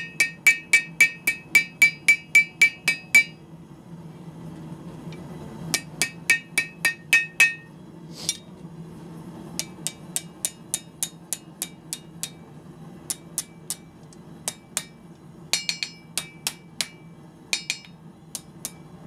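Hand hammer striking a hot iron bar over the horn of an anvil to bend it into a hook: runs of quick blows, about four or five a second, each with a bright metallic ring, broken by short pauses, with lighter and sparser blows in the second half. A steady low hum runs underneath.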